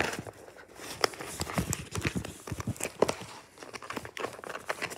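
Cardboard box of a figure set being handled and pried open by hand: scattered short clicks, scrapes and crinkles of card and packaging as it resists opening.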